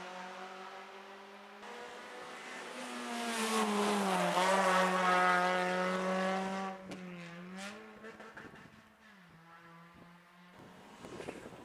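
A rally car's engine drives through a tarmac hairpin. It grows loudest about four to six seconds in, its pitch dipping and climbing again several times, with a couple of sharp cracks around seven seconds in, and then fades into the distance.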